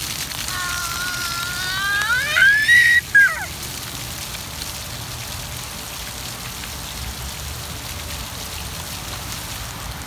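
Ground-jet water fountain spattering onto wet paving, a steady hiss of falling water. For the first three seconds or so a small child's excited voice rises in pitch over it, then breaks off.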